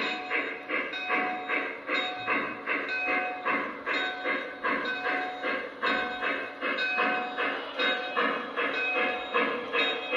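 Lionel Western Maryland Shay model locomotive's sound system chuffing in an even rhythm, about two to three chuffs a second, as the O-gauge train runs slowly along the track.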